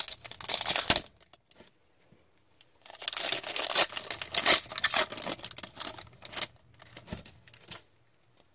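Foil trading card pack wrapper being torn open and crinkled, in two bursts: a short one in the first second and a longer one from about three to six and a half seconds in, followed by a few light clicks.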